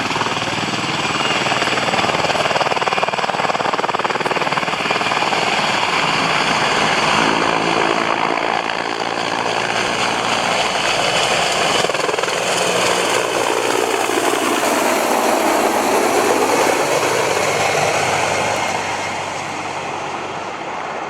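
Helicopter running loud, its rotor blades chopping fast over a steady high turbine whine; the sound fades away near the end.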